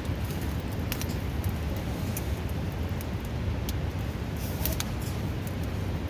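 Steady rushing of a river close by, loud and low, with a campfire's burning wood giving a few sharp crackles and pops over it.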